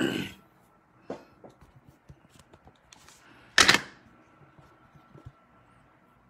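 Handling noise from a phone held in the hand as it is turned and carried: a bump at the start, small clicks and taps, and a louder short knock or rub about three and a half seconds in.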